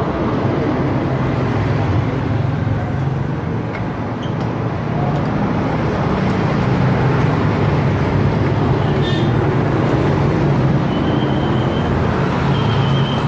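A steady low vehicle rumble, with a few short high squeaks near the end.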